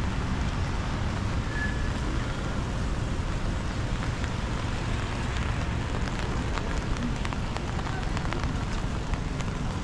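Rainy city street ambience: a steady hiss of rain and of traffic on wet roads over a low rumble, with scattered small ticks of raindrops.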